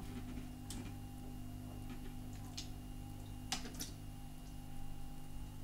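Electric pet drinking fountain's pump humming steadily, with a few short clicks and splashes as a cat paws at the water in its bowl.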